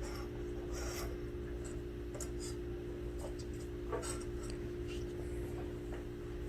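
Faint, irregular scratching and light ticks of small parts being handled on a workbench, over a steady electrical hum.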